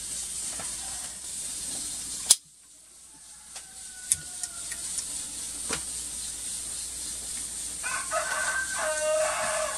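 A rooster crowing once near the end, a call of about two seconds. A sharp click about two seconds in is the loudest moment.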